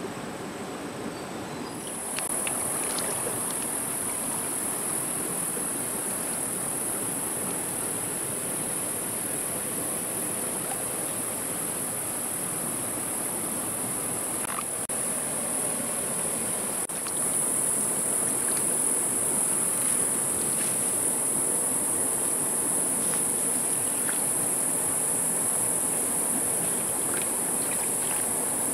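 A steady, high-pitched insect chorus that starts about two seconds in and grows louder partway through, over the low rush of a shallow stream running among stones.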